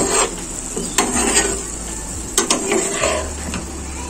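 A flat spatula stirring whole boiled potatoes and chopped tomato through sizzling oil in a non-stick frying pan, mixing the just-added tomato into the spiced potatoes. It makes repeated scraping strokes, with a few sharp clicks where the spatula knocks the pan.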